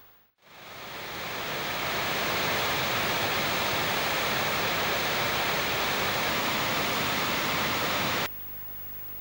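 River water pouring over a weir in a steady rushing wash. It fades in over the first couple of seconds and cuts off suddenly near the end.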